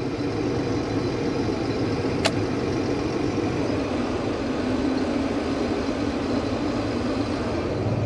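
Case IH 2366 combine's six-cylinder diesel engine running steadily at low revs, heard from inside the cab, with a single sharp click about two seconds in. The revs are too low for engaging the combine's threshing mechanism.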